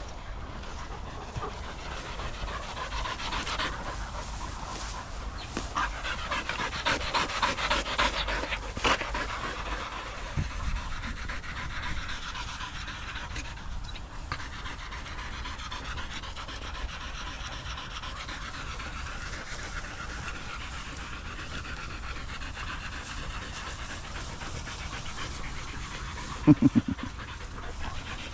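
Several dogs, border collies among them, panting hard after running: a fast, steady rhythm of breaths. A couple of brief loud knocks come near the end.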